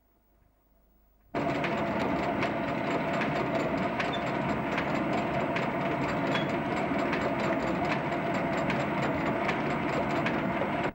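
Pottery jiggering machine (calibreuse) running with a steady mechanical clatter and regular ticks, starting abruptly about a second in, as it spins the plaster mould and its profile tool shapes the inside of the clay piece.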